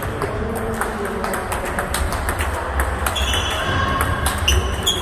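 Table tennis rallies across a busy hall: many quick overlapping clicks of celluloid-type balls striking rackets and bouncing on tables, irregular and from several tables at once. A few short high tones come in over the clicks near the end.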